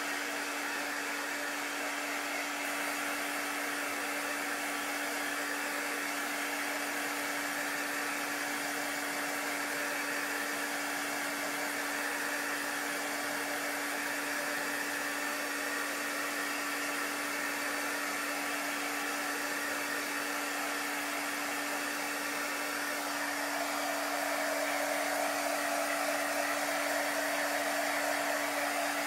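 Handheld craft heat tool blowing steadily to dry freshly applied chalk paste: an even whir with a steady hum, a little louder about three-quarters of the way through.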